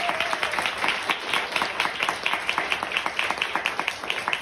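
Audience applauding: many hands clapping quickly and steadily, the separate claps standing out more toward the end.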